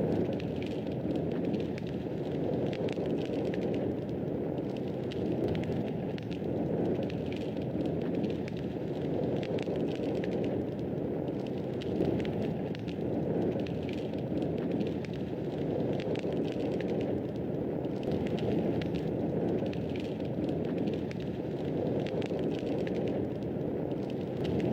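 Wood fire burning in a fireplace: a steady low rush of flames with many small, irregular crackles and pops throughout.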